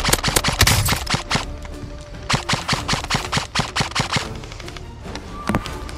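Airsoft electric rifles firing rapid full-auto bursts: a fast run of sharp clicking shots, a short pause, a second burst, then scattered single shots near the end.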